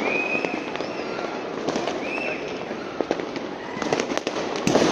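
Fireworks and firecrackers going off all around: a constant crackle with many sharp bangs overlapping, the loudest cluster of bangs near the end.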